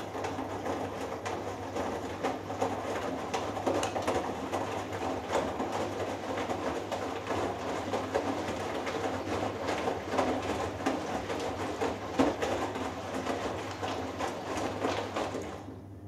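Hoover Dynamic Next washing machine drum tumbling wet laundry through the water of the final rinse, with sloshing and splashing over a steady low hum. The tumble starts at the beginning and stops abruptly near the end, the drum pausing between turns.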